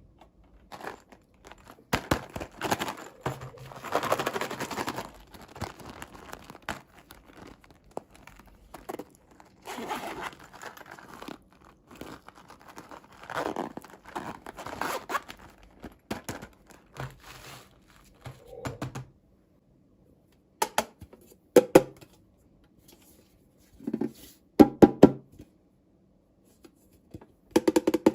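Toy packaging being torn open and crinkled by hand in repeated spells, followed in the last third by a handful of sharp clicks and taps.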